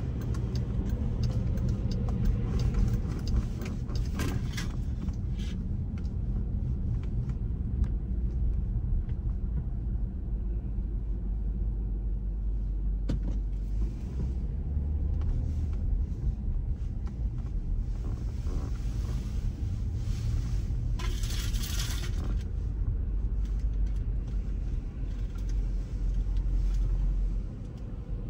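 A car moving slowly, heard from inside: a steady low rumble of engine and tyres, with a short burst of hiss about four seconds in and a stronger one lasting about a second around twenty-one seconds.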